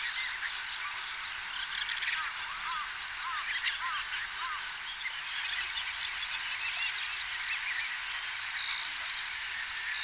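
A flock of red-necked stints calling: many short, overlapping high chirps and twitters over a steady background hiss.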